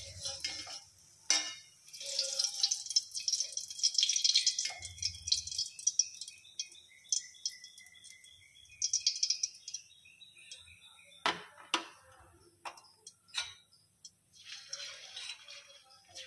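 Hot ghee sizzling and crackling in a kadhai as fried gulab jamun are lifted out with a wire skimmer. Midway come a few sharp metal clinks of the skimmer against the pan, and the sizzle picks up again near the end as fresh dough balls go into the ghee.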